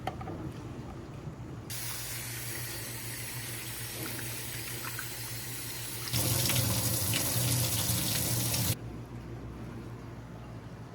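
Kitchen faucet running into a sink. The water comes on about two seconds in, gets louder around six seconds as the flow increases, and is shut off abruptly a little before nine seconds.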